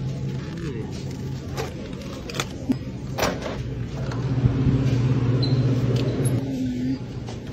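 Low steady hum of supermarket refrigerated cases, swelling for a few seconds around the middle. Several sharp clicks and knocks come in the first half as egg cartons are handled and a glass cooler door is pulled open.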